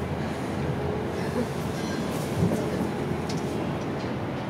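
Steady low rumble of a vehicle in motion, with a faint steady hum.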